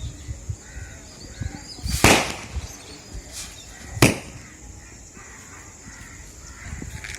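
Two firecracker bangs about two seconds apart, each sudden and loud, the first with a brief rushing tail and the second sharper.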